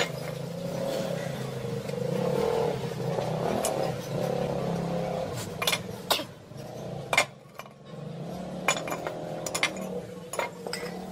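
Rusty steel parts of a pair of metal shears clicking and clinking together as they are handled and fitted: a run of sharp clicks in the second half. A steady low hum runs underneath.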